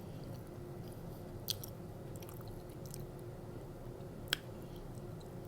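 Close-up chewing of soft pizza fries (seasoned fries with cheese, pepperoni and marinara), with two sharp mouth clicks, one about a second and a half in and another about four seconds in. A steady air-conditioner hum runs underneath.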